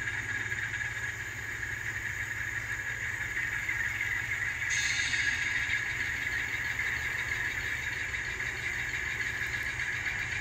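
Alco C420 diesel engine sound from an ESU LokSound decoder, played through the N scale locomotive's small speaker, running steadily as the model moves. A brief hiss joins about halfway through.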